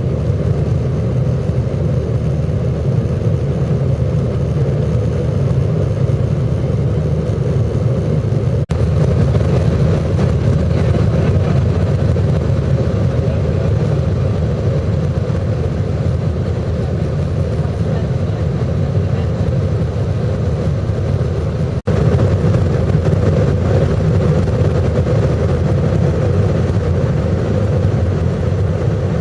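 Jet airliner's engines and rushing air heard from inside the cabin during takeoff, a loud, steady rumble. The sound drops out briefly twice, about nine and twenty-two seconds in.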